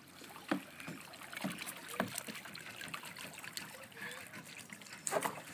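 Kayak paddle blades dipping into lake water, with a few sharp splashes about half a second, a second and a half and two seconds in, and water trickling off the blades in between.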